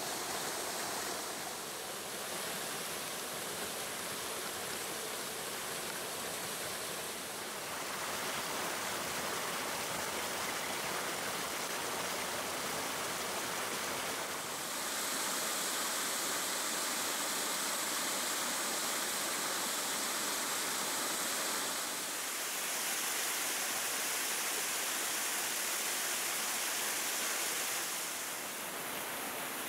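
Steady rush of water pouring over a low weir step and churning through a small stone channel; its level and tone shift a few times.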